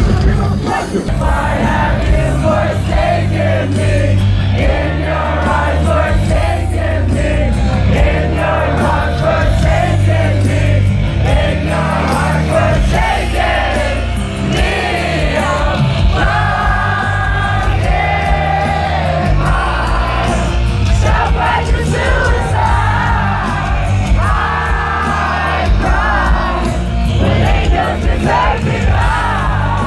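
Live rock band playing loudly through the concert PA, with a singer's voice over a heavy bass, heard from within the audience.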